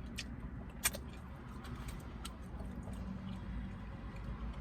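Steady low rumble inside a car's cabin, with a few small clicks and one sharper click about a second in.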